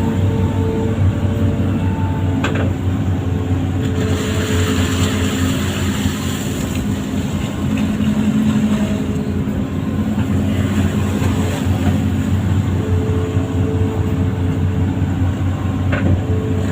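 Amphibious excavator's diesel engine running steadily with a deep hum, with a short sharp knock a couple of seconds in and another near the end.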